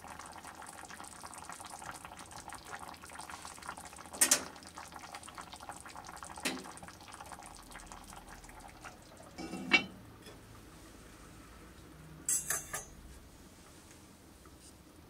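Broth simmering and bubbling in an enameled cast-iron pot, with a couple of light knocks. About ten seconds in, a heavy clunk, after which the bubbling grows fainter, then a short clatter of the lid a couple of seconds later.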